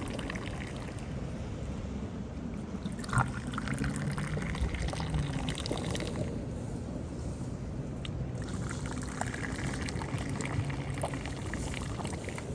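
Water pouring and trickling steadily at a low level.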